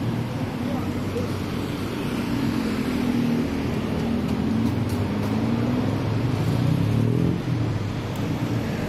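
Road traffic: the engines of passing vehicles, with one growing louder and going past about seven seconds in.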